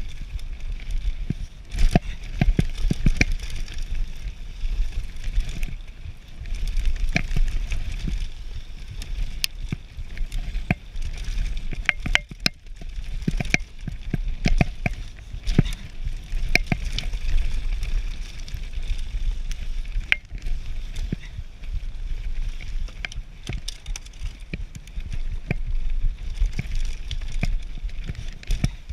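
Radon Slide Carbon enduro mountain bike descending a dirt trail at speed: a steady low rumble of tyres on the ground, broken by frequent sharp clicks and clatters as the bike is jolted over bumps.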